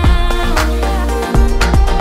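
Background music: an electronic track with deep bass notes and a steady beat.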